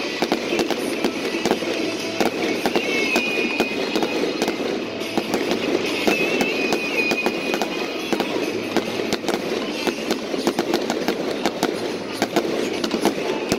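Fireworks going off close by in a rapid, continuous crackle of many small pops and bangs, with a thin whistle twice.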